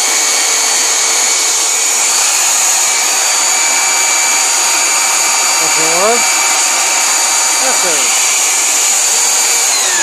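Tacklife belt sander, mounted upside down as a table sander and set to top speed 6, running loudly and steadily while wood is sanded on the belt. Its pitch wavers briefly twice, around six and eight seconds in, and it starts winding down at the very end.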